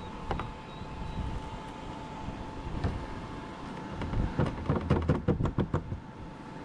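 A quick run of about ten sharp knocks or taps, about six a second, lasting roughly two seconds. It is preceded by a couple of single knocks, over a steady background noise with a faint steady tone.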